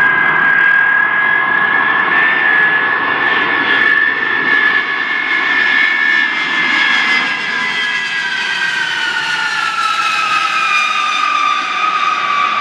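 Lockheed C-5 Galaxy's four turbofan engines whining on landing approach: a loud, steady high whine over a broad roar, which slides down in pitch about eight seconds in as the aircraft passes the listener and moves away.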